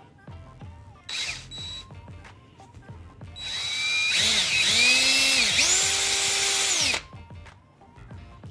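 Power drill enlarging a hole: a brief spin about a second in, then two longer runs, the motor whine rising as the trigger is squeezed, holding, and falling as it is let off.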